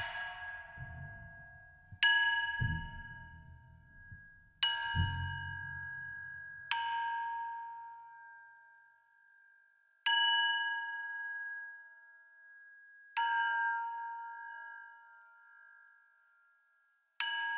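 A bell-like metal chime struck about six times at uneven intervals, every strike ringing out with the same cluster of tones and fading over a few seconds. Dull low thuds sound under the first few strikes.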